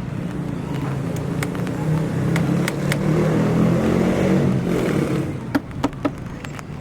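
A motor vehicle engine running with a steady low rumble that fades out about five seconds in, with scattered sharp knocks and clicks, several in quick succession near the end.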